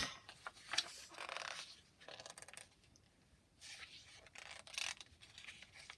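Faint rustles and scrapes of handling noise, in several short bouts.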